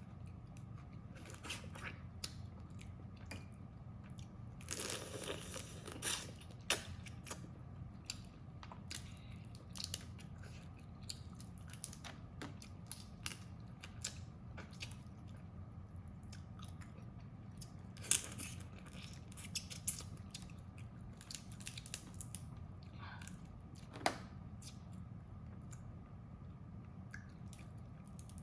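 Close-up eating sounds of crab being bitten and chewed, with scattered sharp cracks of shell and a longer run of crunching about five seconds in, over a steady low hum.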